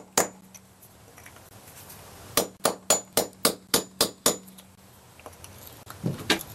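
Hammer striking a mason's cold chisel set on an old lead anchor in a brick mortar joint, sinking the anchor into the joint so it can be filled over with mortar. One blow, a pause, then a quick run of about nine sharp metallic strikes, some four a second, each with a short high ring, and a few softer knocks near the end.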